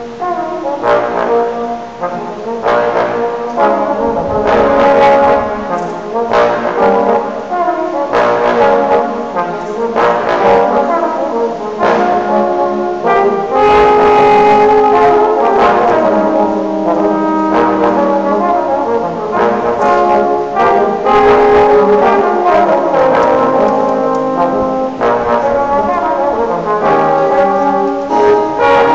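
Brass ensemble, trombones among them, playing a blues piece live, several parts sounding together in continuous sustained notes.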